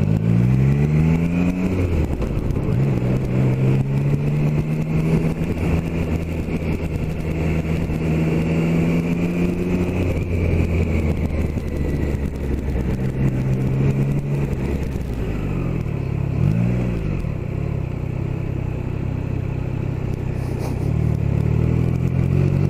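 Triumph Tiger Sport 660's three-cylinder engine heard from the saddle while riding. The revs climb in the first two seconds, hold steady, fall away about ten seconds in, then rise and fall a few more times, with a quick blip a little past halfway and a final pick-up near the end.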